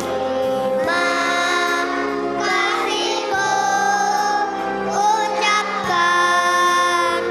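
Young children's choir singing in unison over an instrumental accompaniment, in phrases of long held notes.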